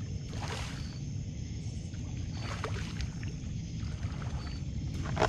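Water splashing at the edge of a rocky lake bank as hands work in the shallows, in a few separate splashes over a steady low rumble, with a sharp knock near the end.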